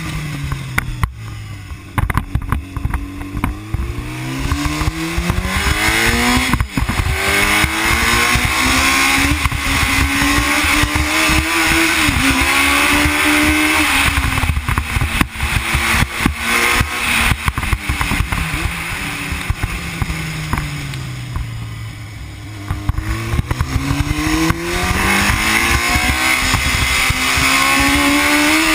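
Onboard sound of a racing sidecar outfit's engine at speed, its pitch falling as it backs off into bends and climbing again as it accelerates out, with wind noise over it. The engine note drops at the start and again around the middle, and rises after each drop.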